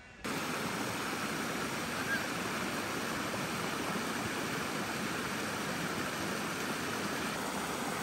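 Creek water rushing steadily over low sandstone ledges in small cascades. The rush starts abruptly just after the beginning.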